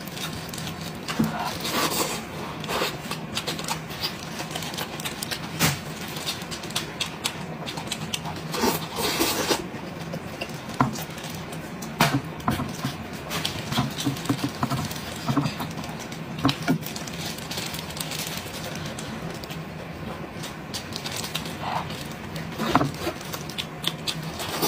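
Close-miked eating of a braised sheep's head: wet chewing and lip-smacking, with gloved hands tearing and pulling the meat apart. The sound is a stream of irregular sharp clicks and crackles.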